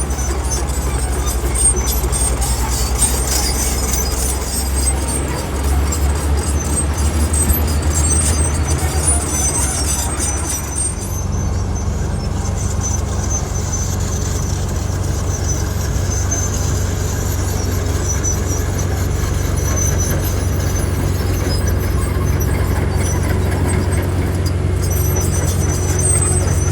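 Heavy diesel earthmoving machinery running steadily under load while spreading gravel, a deep engine rumble throughout. A thin high squeal rides over it for the first half and fades out about halfway through.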